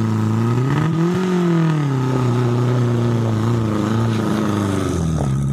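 A small Suzuki Jimny-type 4x4's engine working under load as it climbs a steep dirt slope. Its pitch rises about a second in, holds steady, then eases off near the end, with a thin steady whine running over it.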